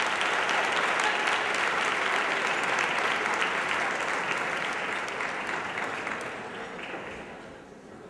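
Audience applauding, the clapping thinning and fading out over the last two seconds or so.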